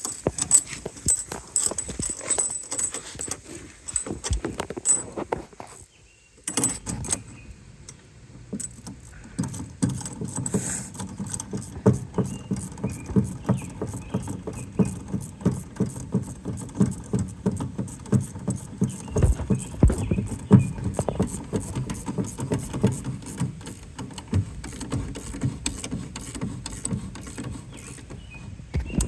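Nut being tightened onto a threaded bolt with a hand tool: a long, rapid run of metallic clicks, several a second, with a short pause about six seconds in.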